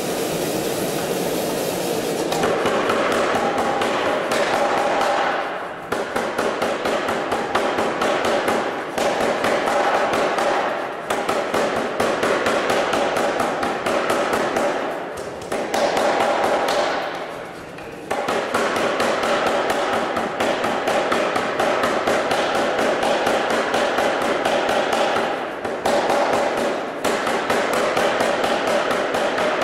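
Anyang 25 kg self-contained air power hammer striking a red-hot steel bar in a rapid, continuous series of blows, several a second. The blows start about two seconds in, with a few short breaks.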